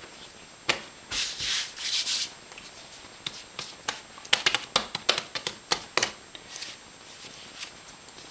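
Hands handling bread dough: a rustle of cloth about a second in, then a quick run of small sharp taps and slaps as a dough round is shaped by hand on a floured tile counter.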